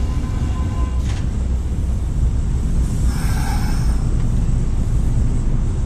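Wind rumbling on the microphone as a Kintetsu electric train moves off past the platform end and fades away. A thin steady tone stops about a second in, and a brief higher-pitched sound comes about three seconds in.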